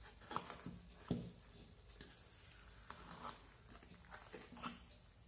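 Steel spoon stirring a dry, crumbly roasted mixture in a metal kadai, with scraping and a few light clicks of the spoon against the pan. The two loudest knocks come about half a second and a second in.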